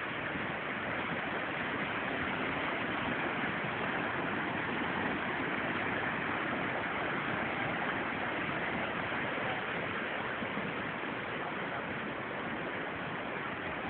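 Steady rush of water from the cascades of the Krka river.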